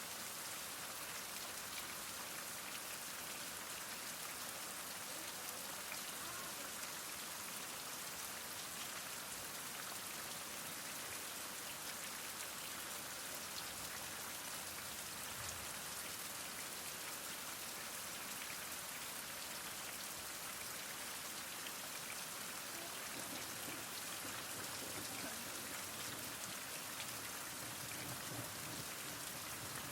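Heavy rain falling steadily: a dense, even hiss of drops with fine scattered ticks of individual drops.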